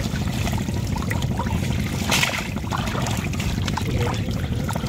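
Steady low rumble under the wet rustling of a fine-mesh fishing net being handled over a catch of small fish, with one louder rustle about two seconds in.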